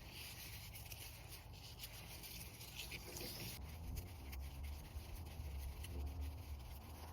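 Faint rubbing and rustling of ratchet-strap webbing as it is wound around the strap's hook and pulled tight.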